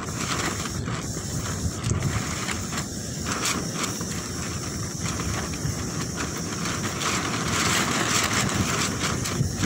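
Strong wind blowing in gusts, a loud rushing noise that swells and eases, with the wind buffeting the microphone.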